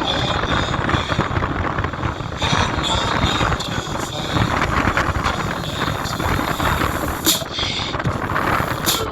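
JBL Boombox portable speaker playing bass-heavy music loudly, the deep bass dominating throughout.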